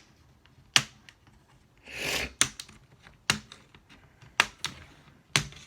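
Plastic retaining clips of a laptop's screen bezel snapping loose one after another as a thin plastic pry tool is twisted between bezel and screen: a series of sharp, separate clicks. A short scraping sound comes about two seconds in.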